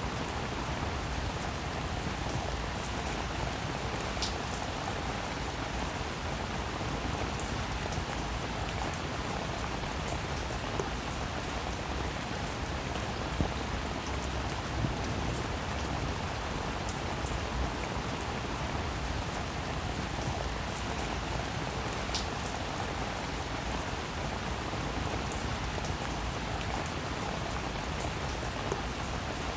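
Steady rain falling, an even patter with occasional sharper individual drop hits standing out.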